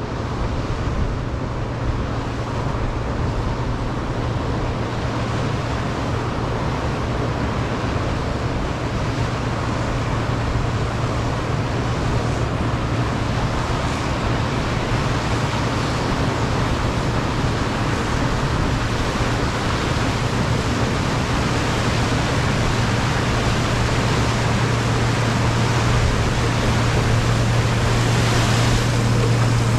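Case IH 1666 combine harvesting corn: the steady drone of its diesel engine and threshing machinery, a constant low hum under a wash of mechanical noise, slowly growing louder towards the end.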